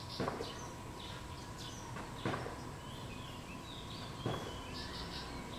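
Small birds giving short, high chirps over steady outdoor background noise. A louder short, sharp sound comes three times, about two seconds apart.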